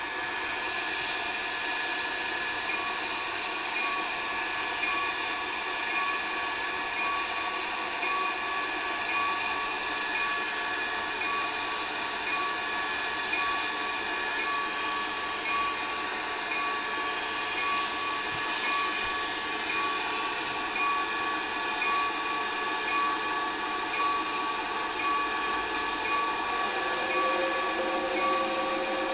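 Small electric motor running steadily with a constant high whine. A lower tone joins near the end.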